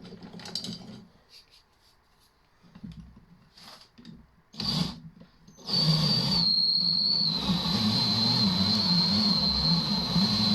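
Cordless drill driving a wire-stripping tool, with a few light handling clicks and knocks before it. About halfway in the drill starts and runs steadily with a high whine that drops a little in pitch shortly after starting, as copper wire is fed through.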